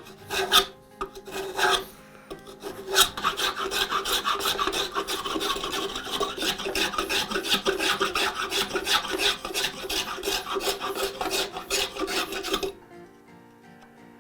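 A hand tool working wood in fast, even back-and-forth strokes, about four or five a second, that stop abruptly near the end, with a few separate strokes at the start.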